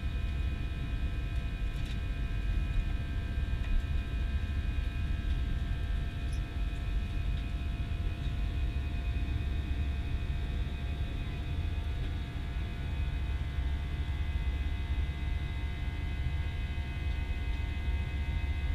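Airbus A320 cabin noise in flight: a steady low rumble of the engines and airflow, with several faint steady whining tones above it.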